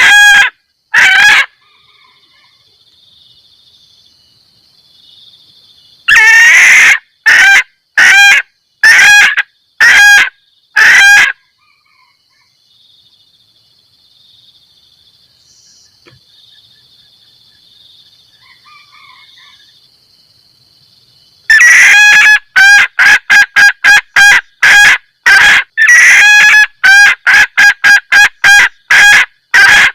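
Female junglefowl giving its cackling 'kekek' mating call, a lure sound for calling in males. Two notes open the call, then a string of about six spaced notes, then after a long pause a fast, steady run of sharp notes, about two a second. A faint high steady buzz sits under the pauses.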